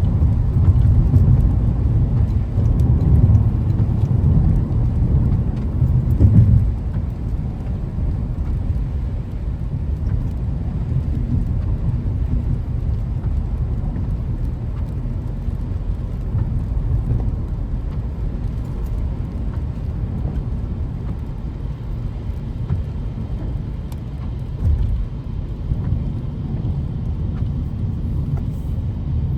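Car on the road: a steady low rumble of engine and tyres, louder for the first six seconds or so, then evening out.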